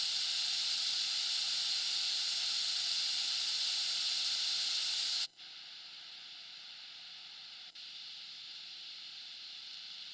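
Steady high-pitched hiss, the noise floor of a high-gain NAM capture of a Victory MKX amp with the guitar not being played. About five seconds in it drops suddenly to a quieter hiss, and there are brief cutouts twice more near the end.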